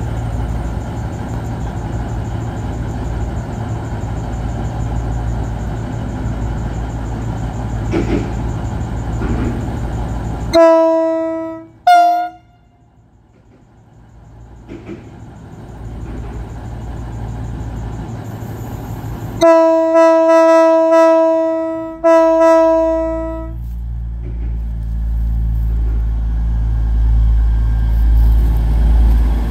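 V/Line VLocity diesel multiple unit running at the platform, then sounding its horn: two short toots about ten seconds in and two longer blasts about twenty seconds in. Its diesel engines then build up as the train pulls away.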